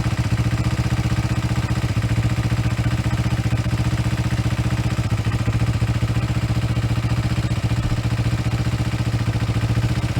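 2001 Kawasaki ZX-6R J2's inline-four engine idling steadily just after being started, a fast even pulsing.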